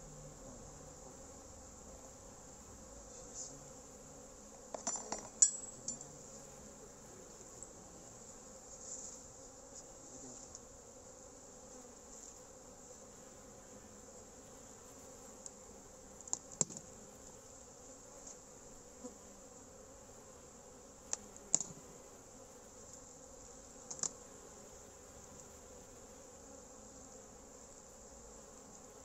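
Honeybees buzzing around an opened wooden hive, a steady faint hum. A few sharp clicks and knocks of the wooden hive parts being handled break through it, the loudest a cluster about five seconds in, then three more spread through the later part.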